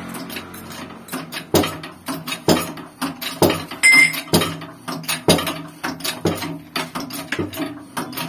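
Hydraulic shop press being worked to press a new wheel bearing onto a Mitsubishi L300 rear axle shaft: sharp metallic clanks about once a second with lighter clicks between. There is a brief high squeak about four seconds in.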